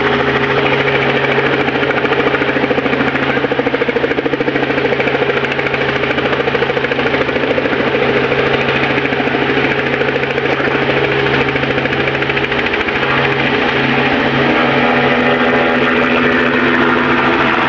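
Light helicopter running on the ground before lift-off, its engine and turning main rotor making a loud, steady throbbing; the low note starts to pulse about thirteen seconds in and the sound grows slightly louder near the end.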